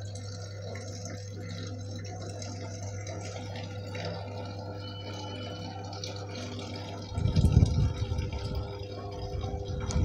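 Samsung 7 kg top-load washing machine filling: water pours into the drum at the start of a wash cycle, over a steady hum. About seven seconds in, a much louder low rumble joins it.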